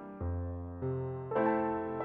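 Background music: a keyboard playing sustained chords, a new chord struck about every half second.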